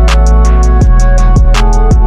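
Background music with a steady beat: quick ticking hi-hat strokes and deep beats that slide down in pitch, under held instrument notes.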